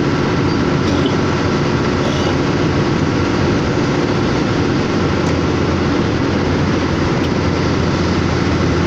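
Diesel truck running steadily at highway speed, heard from inside the cab: a constant engine drone under the hiss of tyres on a wet road.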